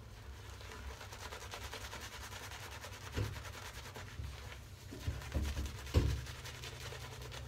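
Shaving brush scrubbing soap lather on a face: a steady, fine crackly rubbing, with a few low bumps in the second half.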